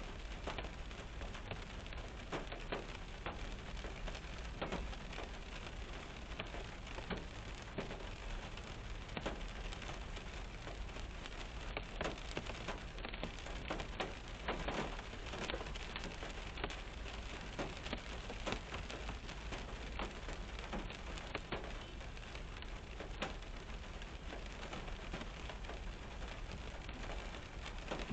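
Steady rain falling on a car's roof and windshield, heard from inside the car: a continuous dense patter with many individual drop strikes standing out.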